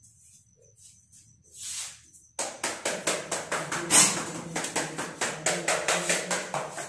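A bamboo winnowing basket (soop) beaten in a fast, even rhythm of sharp taps, about five a second, starting suddenly about two and a half seconds in, with one louder strike a second and a half later. This is the pre-dawn beating of the soop to drive poverty out of the house.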